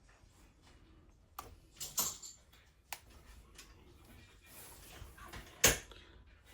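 A few sharp clicks and knocks of a tablet and its charging cable being handled on a workbench during a charging test, the loudest about five and a half seconds in.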